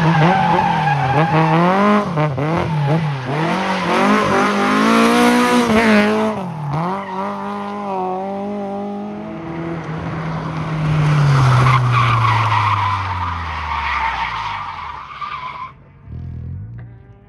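Rally car engine revving hard up and down as the car slides round a turn on rough concrete, with tyres skidding. The engine note then falls steadily as the car drives off, and the sound cuts off suddenly near the end.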